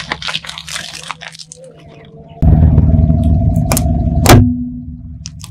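A car tyre rolls over and crushes a white foam food container and green plastic, giving a run of small crackles and crunches. Then, over the car's low engine rumble, the tyre crushes a small light-up plastic toy with two sharp cracks, the second the loudest.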